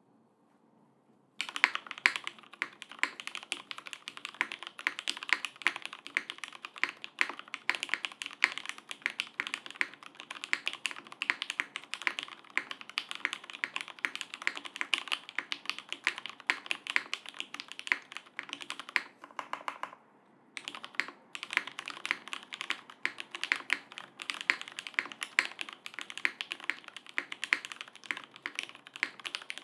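Continuous fast typing on a custom top-mount 60% keyboard with lubed Cherry MX Black Hyperglide linear switches, an aluminium half plate, no foam and GMK keycaps. The typing starts about a second and a half in and pauses briefly about two-thirds of the way through.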